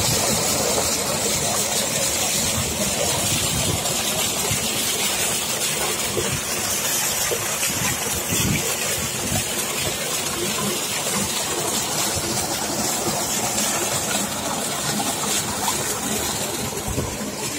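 Water gushing steadily from an electric pump's outlet pipe into a tank, a loud, continuous rushing and splashing.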